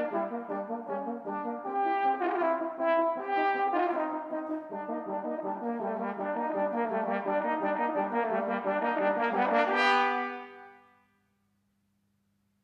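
Two French horns playing a fast, rhythmic duet. The final notes are the loudest, about ten seconds in, and then ring away to nothing.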